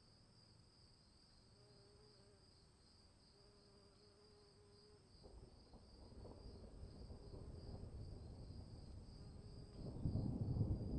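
Crickets chirring steadily in a high, even drone. About halfway through, a deep rumble of thunder starts to build, growing much louder near the end.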